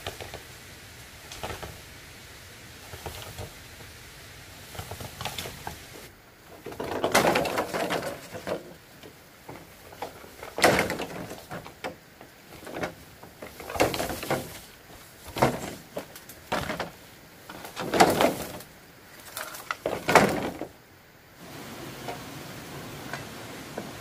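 An irregular series of short knocks and scraping sounds over a steady faint hiss. They grow louder after about six seconds, with the strongest near the middle and toward the end.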